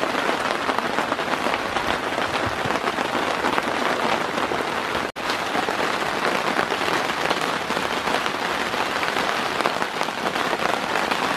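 Steady rain falling, in the second half on a tent fly overhead, an even hiss of many fine drops with a brief break about five seconds in.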